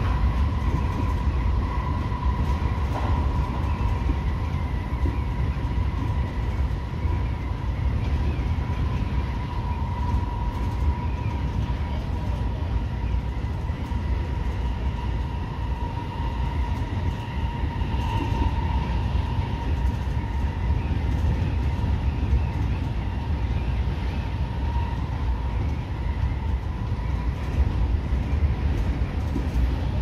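Seibu 30000 series electric train running at speed, heard from the front of the train: a steady low rumble of wheels on rail with a thin, steady whine over it.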